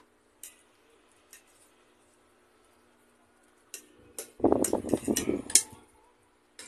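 Eating at the table: forks tap and clink on plates a few times, then about four and a half seconds in comes a louder stretch of spaghetti being slurped and chewed.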